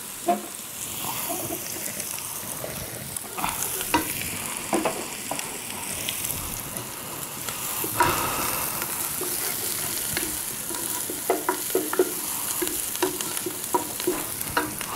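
Onions sizzling in hot oil in a frying pan while being stirred, with a steady hiss and the utensil clicking and knocking against the pan now and then.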